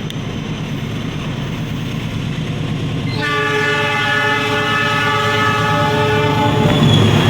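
A CC 206 diesel-electric locomotive approaching with a rising rumble. About three seconds in, its multi-tone air horn sounds one long steady chord lasting about three and a half seconds, then the heavy rumble of the locomotive passing close.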